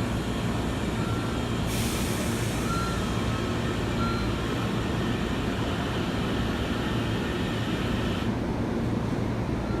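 A train's steady rumble, with a hiss that comes in about two seconds in and stops near the end.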